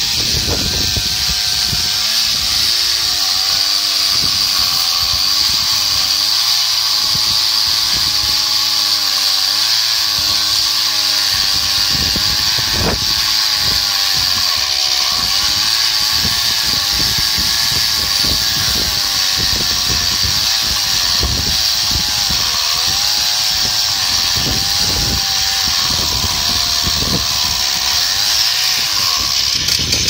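Chainsaw in an Alaskan chainsaw mill ripping a slab lengthwise from a large ash log. The engine runs flat out under load, its pitch dipping and recovering as the cut goes on.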